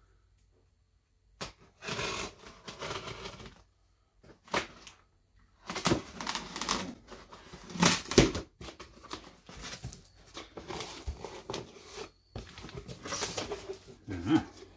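A knife slitting packing tape along a cardboard box in a series of scraping strokes, with the tape tearing. Near the end, cardboard flaps are pulled open with rustling and crackling.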